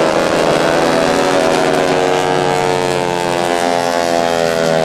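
Aircraft engines droning in a steady, layered tone as a formation of aircraft flies past overhead. The pitch slides gradually lower, then starts to rise near the end.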